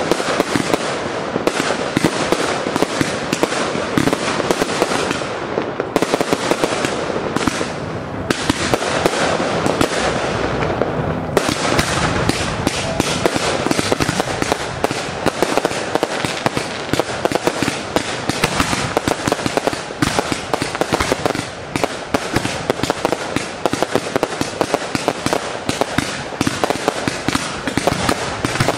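Fireworks display: a dense, unbroken run of bangs and crackles as many fireworks go off in quick succession.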